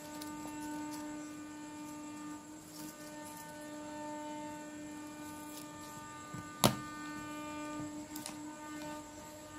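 Steady electrical hum, with a few faint snips of scissors cutting thin paper. One sharp click comes about two-thirds of the way through.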